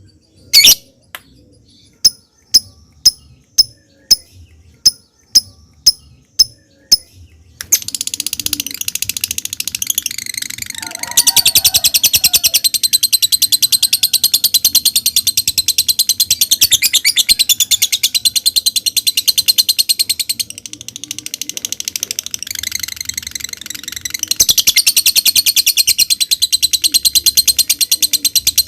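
Lovebird calling: a string of separate sharp chirps, about two a second (the 'ngetik' ticking call), then a long, fast, high-pitched chattering trill (the 'ngekek'), which breaks off briefly past the middle and starts again.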